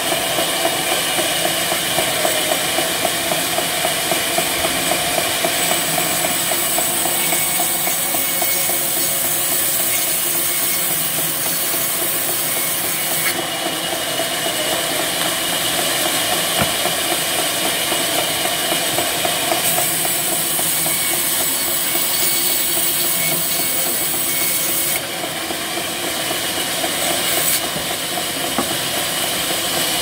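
Sawmill band saw running and cutting lengthwise through a banyan log: a steady machine drone with a strong hiss from the blade in the wood. The hiss shifts in level a few times as the log is fed, with a brief dip about 25 seconds in.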